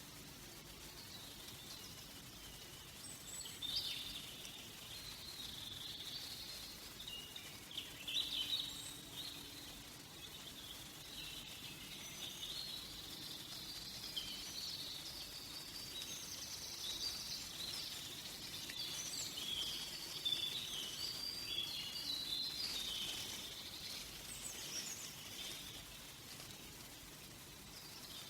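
Forest birdsong: several small birds chirping and warbling at once in a busy, continuous chorus, with louder bursts of song a few times.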